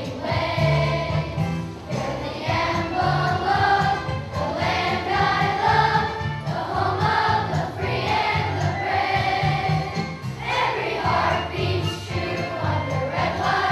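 A children's choir singing a song together, with a steady accompaniment beneath the voices.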